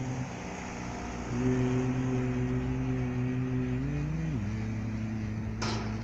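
A low voice holding long, steady notes, sliding to a lower note about four seconds in, over a steady hiss; a short noisy burst comes near the end.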